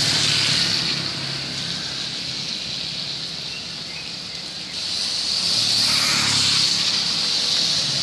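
Steady rain hiss on a wet road. A motorbike's engine fades away in the first second, and about five seconds in another motorbike approaches and passes, its tyres swishing on the wet asphalt.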